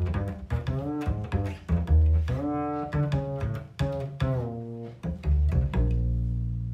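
Double bass played pizzicato, plucked with the index and middle fingers of the right hand: a jazz bass line at about three notes a second, a few notes sliding in pitch. Near the end a low note rings on and fades.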